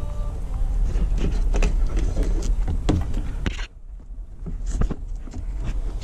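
Plastic car interior trim being worked loose by hand: irregular clicks, knocks and rustling over a low rumble. The sound drops away suddenly a little past halfway, then builds back up.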